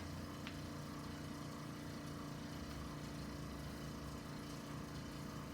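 Steady low machine hum, with a faint click about half a second in.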